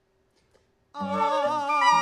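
Near silence for about a second, then a woman's wordless operatic singing with a wide vibrato comes in suddenly, along with other sustained notes in improvised music.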